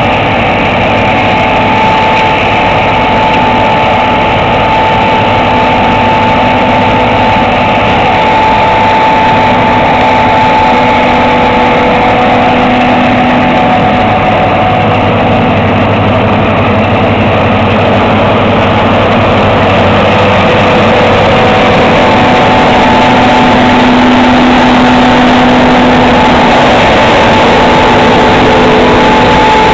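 John Deere 2256 combine harvester running steadily while harvesting soybeans: a loud, continuous engine and machinery drone, growing a little louder in the second half.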